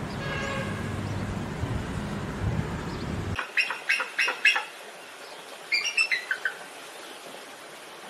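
Bald eagle calling: a run of quick, high, sharp notes, then after a pause a shorter run that falls in pitch. Before it comes a few seconds of a different recording, faint bird calls over a low rumble, that cuts off suddenly.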